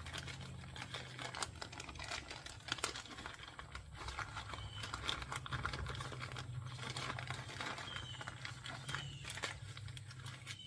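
Packaging being handled and opened to get at a new chainsaw chain: crinkling and tearing with irregular small clicks and rattles, over a steady low hum.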